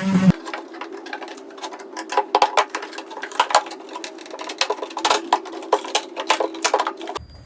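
Rapid, irregular clicking and knocking of hand tools against wood as a glued-on piece of an old wooden table is worked loose, over a steady hum that cuts off near the end.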